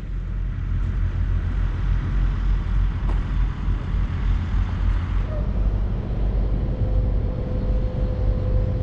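Low, steady rumble of diesel semi trucks running in a truck yard, with a faint steady tone joining about two-thirds of the way through.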